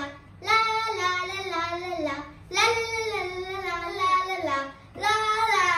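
A young girl singing wordless, tuneful phrases: three sung lines with short breaks between them.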